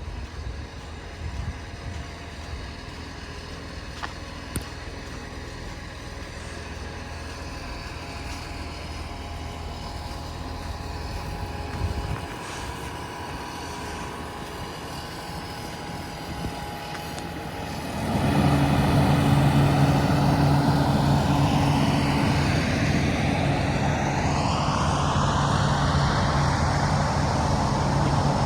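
Street traffic on a snowy road: a vehicle grows slowly louder, then about two-thirds of the way through a heavy vehicle's low engine drone comes in close and loud. Its tyre hiss sweeps downward in pitch as it passes.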